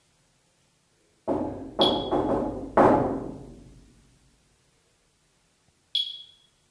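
A quick run of loud knocks, answers in a knocking game taken for a spirit's response, each echoing and fading over about a second. Short high electronic beeps sound once among the knocks and again near the end.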